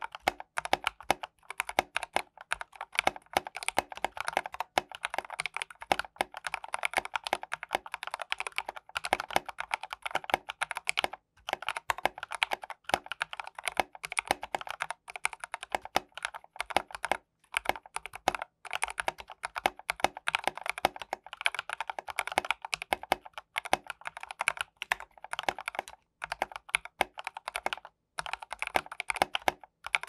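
Continuous typing on a Rakk Lam-Ang Pro mechanical keyboard with lubed Durock L7 linear switches and Durock plate-mount stabilizers. A fast, steady stream of keystrokes, broken by brief pauses every few seconds.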